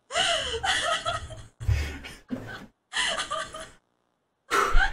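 A woman laughing in four breathy fits, with a short pause before the last.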